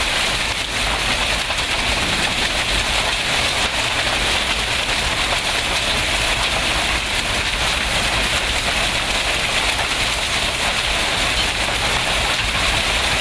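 Heavy rain pouring down in a steady, unbroken hiss, with a low rumble underneath.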